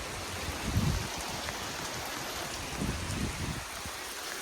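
Heavy squall-line rain falling steadily, a constant hiss of rain on surfaces. Two brief low rumbles come through about a second and three seconds in.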